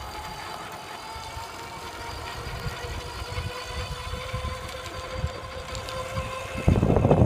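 Electric bike motor whining steadily, its pitch creeping slightly upward, over a low rumble. Near the end, loud wind noise on the microphone suddenly covers it.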